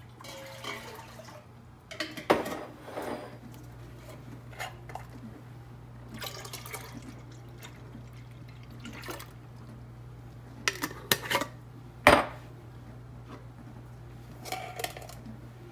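Fresh goat's milk poured from glass jars into a stainless steel pot, the milk splashing and gurgling as it fills, with a few sharp knocks of jar against pot, the loudest about twelve seconds in.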